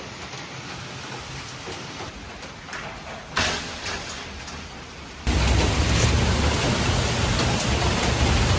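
Steady rushing noise like rain. About five seconds in it jumps suddenly much louder.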